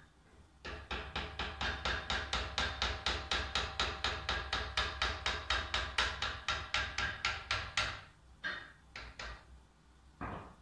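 Fast, even metal-on-metal hammer taps at the nose of a Cazeneuve HB 575 lathe spindle clamped in a vise, about five a second for some seven seconds. Each tap leaves the steel ringing. A few slower, separate knocks come near the end.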